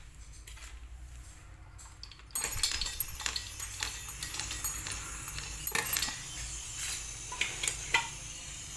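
Metal tools and fittings clinking and rattling as refrigerant charging gear is handled. About two seconds in, a steady hiss starts suddenly under the clinks and keeps going.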